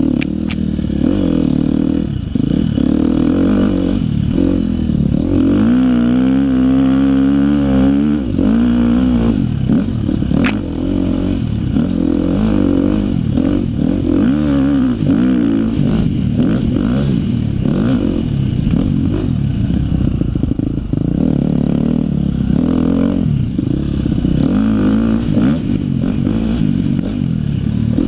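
2013 KTM 250 XC-F four-stroke single-cylinder dirt bike engine running hard, its pitch constantly rising and falling as the throttle opens and closes, with a clear rev up and back down a few seconds in. Two sharp clicks cut through, one right at the start and one about ten seconds in.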